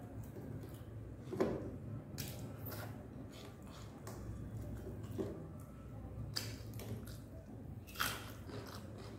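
Someone eating rice by hand: soft chewing and mouth sounds, with several short, sharp clicks as fingertips pick the last bits of rice off a ceramic plate, over a low steady hum.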